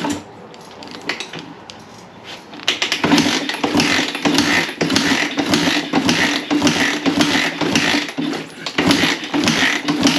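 Kawasaki KLX single-cylinder dirt-bike engine being cranked over with the spark plug out and a compression gauge fitted, pulsing evenly at about two compression strokes a second from about three seconds in. It is a wet compression test with oil added to the cylinder; the gauge climbs to about 170 psi.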